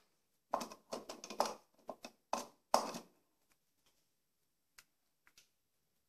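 Hand handling and tapping the plastic underside and small casters of a Samsung canister vacuum cleaner. A quick run of small clicks and knocks over about two and a half seconds, then a few faint ticks.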